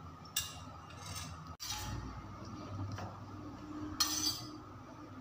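A metal spoon clinking against a small stainless steel bowl of tomato sauce while sauce is scooped and spread on bread: a few separate clinks, the loudest cluster about four seconds in.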